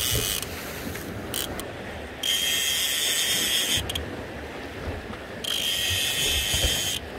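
Fishing reel ratcheting and whirring in three bursts of a second or so each, with pauses between, while a fish is on the line.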